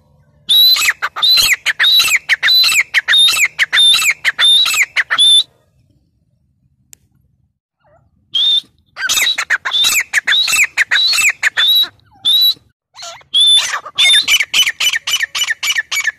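Grey francolin calling: a run of loud, shrill, repeated notes at about three a second. After a pause of nearly three seconds the calling starts again and quickens toward the end.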